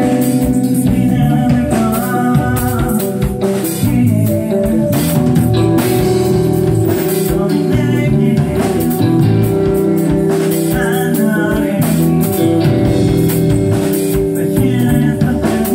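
Live rock band playing: electric guitar, bass guitar and a drum kit together, loud and continuous.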